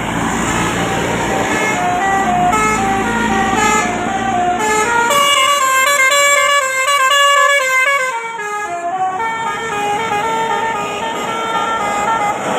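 Bus 'telolet' multi-tone horn (Basuri type) playing a tune of short stepped notes, with several notes sounding together in a denser run through the middle, over the low rumble of the bus's engine and road noise.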